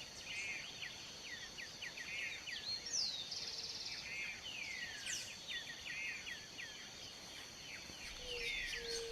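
Outdoor nature ambience: birds chirping in short repeated calls and quick falling whistles over a steady high-pitched insect drone.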